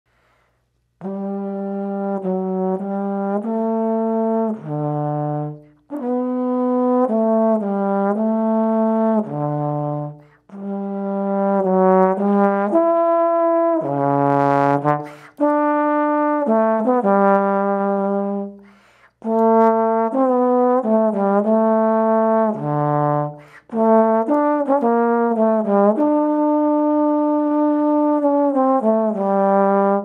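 Solo slide trombone playing a melody of held notes that step up and down. The notes come in phrases of about four seconds with short pauses between them.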